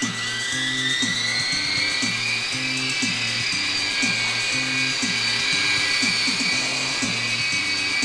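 Air Hogs Sharpshooter coaxial toy helicopter's small electric motors spinning up for takeoff: a whine that rises over about the first second, then holds steady while it flies. Background music with a steady beat plays underneath.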